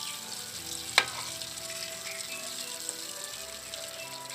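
Flour-coated chicken pieces sizzling steadily as they deep-fry in oil over a low flame. A single sharp click comes about a second in.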